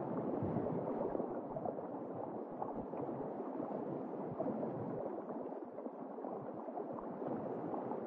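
Underwater ambience: a steady, muffled rush of moving water, with no high tones, as heard below the surface of the sea.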